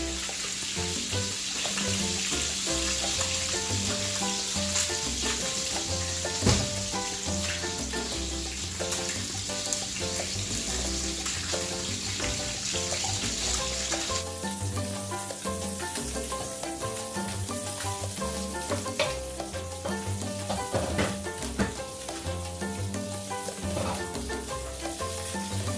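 Pot of squash, string beans and shrimp in coconut milk bubbling at a simmer, a steady sizzling hiss, with background music playing over it.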